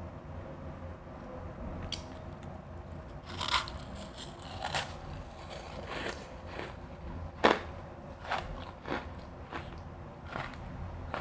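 Refrozen crushed ice being bitten and crunched close to the microphone: irregular sharp crunches starting about two seconds in, the loudest about three-quarters of the way through.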